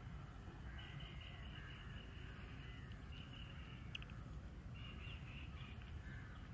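Faint outdoor ambience: distant birds calling on and off over a low, steady rumble.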